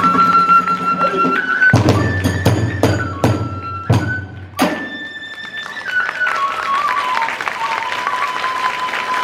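Kagura festival music: a bamboo flute holds a high note over a run of heavy drum strokes, which stop on a last hard stroke a little under five seconds in. The flute then plays on alone, stepping down in pitch, as clapping builds behind it near the end.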